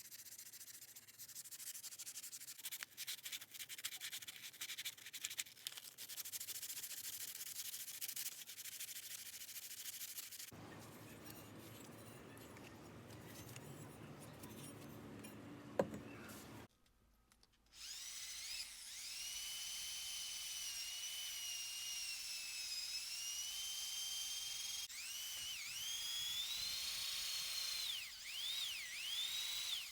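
Sanding by hand with a dry rubbing rasp for about ten seconds, then coarser scraping with a single sharp click, a brief silence, and then a small high-speed power tool whining steadily, its pitch dipping again and again near the end as it is pressed into the work.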